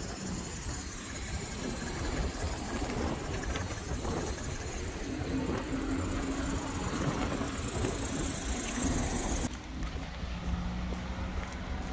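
Road traffic passing outdoors, with wind buffeting the microphone. A faint steady engine hum comes in during the second half.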